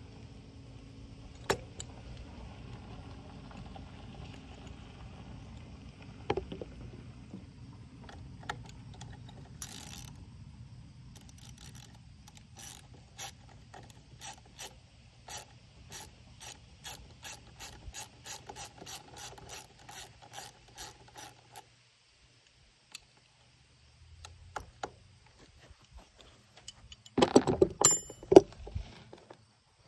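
Ratchet wrench clicking in a long even run as the 10 mm bolts on a dirt bike's brake lever clamp are worked, with a few separate knocks before it and a loud metallic clatter near the end.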